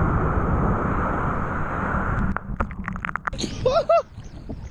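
Steady rushing noise that cuts off abruptly about two seconds in, followed by a few sharp clicks and two short voice-like yelps near the end.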